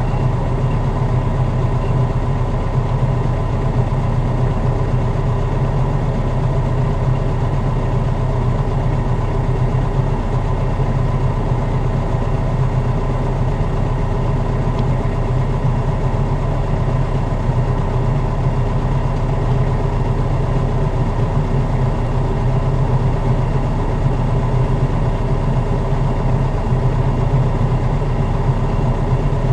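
Kubota tractor's diesel engine idling steadily in neutral, with the rotary cutter's blades disengaged after the mower jammed on buried debris.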